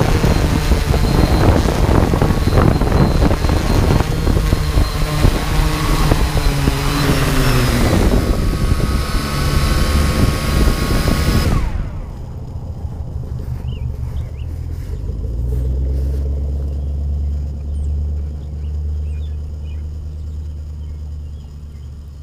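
Quadcopter drone motors and propellers whining loudly close to the microphone, their pitches sliding down as it settles, then cutting off suddenly about twelve seconds in. A low steady rumble with a few faint high chirps remains after.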